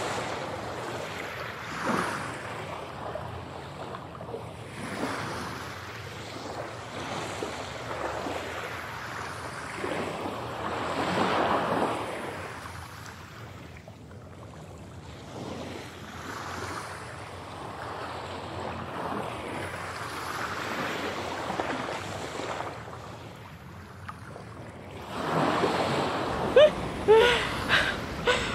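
Ocean surf breaking on a beach, the wash swelling and falling away every few seconds. Near the end a woman laughs over it.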